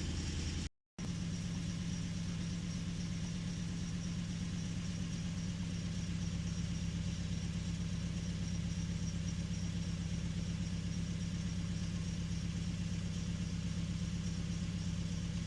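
A 2011 Nissan Frontier's 2.5-litre four-cylinder engine idling steadily while it has a random misfire, pinned to cylinder 3. The sound drops out completely for a moment about a second in.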